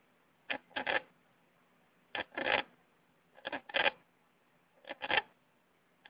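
A small pet's throat making an abnormal raspy noise with each breath: paired rasps, a short one then a longer one, repeating about every second and a third.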